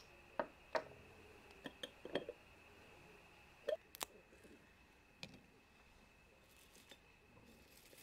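Dried calendula, lavender and a dried orange slice being handled and dropped into a small ceramic bowl: a scatter of light clicks, taps and crisp crackles, over a faint steady high whine.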